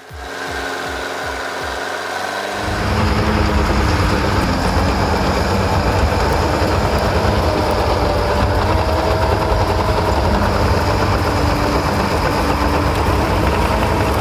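Cat 527 tracked skidder's Cat 3304 diesel engine running: a lighter, pulsing run for the first couple of seconds, then it comes up to load about two and a half seconds in and runs loud and steady with a heavy low rumble.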